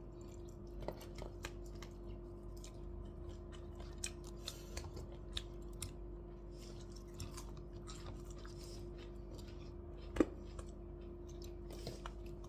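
People eating: quiet chewing and scattered small clicks over a steady hum, with one sharper click about ten seconds in.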